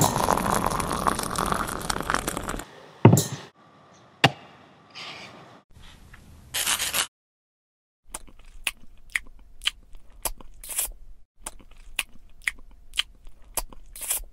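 Water poured from an electric kettle into a metal teapot for about two and a half seconds, followed by a couple of sharp knocks. After a short gap, a biscuit being bitten and chewed: a run of sharp, irregular crunches.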